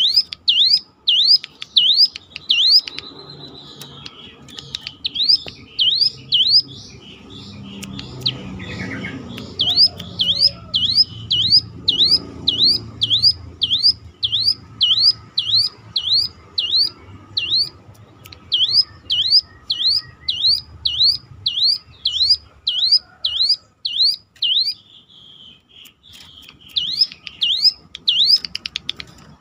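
Hill prinia (ciblek gunung) singing a long run of identical siren-like sweeping whistles, about two a second, broken by a few short pauses.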